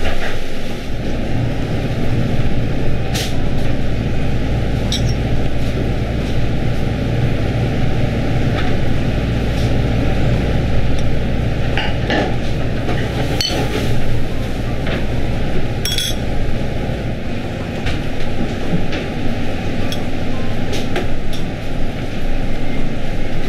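A spoon clinking against a glass dessert coupe now and then as the dessert is eaten, over a steady low hum of kitchen machinery whose deepest part stops about two-thirds of the way through.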